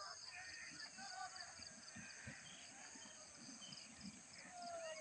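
Faint outdoor ambience: insects calling steadily in a high, pulsing trill, with scattered bird chirps and a few faint low knocks.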